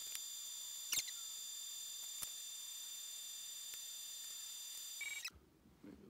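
Samsung microwave oven running: a steady hum with a thin high whine, a sharp click about a second in and another about two seconds in. A short beep sounds shortly before the end, and the running sound then stops abruptly.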